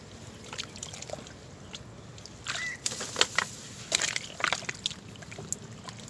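Wet mud and shallow water sloshing and squelching as a mud crab's burrow is dug into by hand, with a cluster of sharp irregular clicks and scrapes through the middle seconds.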